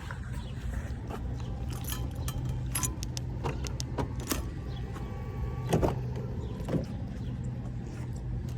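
Keys jangling with scattered small clicks over the steady low hum of a car.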